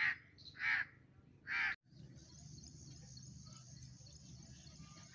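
A bird giving three short, harsh calls about two-thirds of a second apart in the first two seconds, then a faint steady low background noise.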